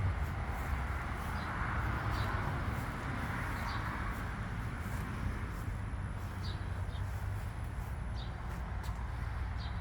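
Outdoor background: a steady low rumble, with a bird chirping faintly now and then, short high chirps about once a second.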